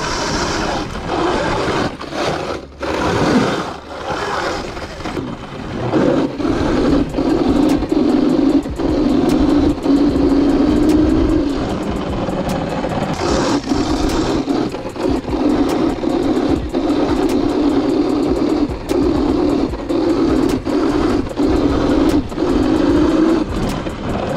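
Electric dirt bike ridden along a dirt trail: continuous riding noise that rises and dips with the terrain, under background music.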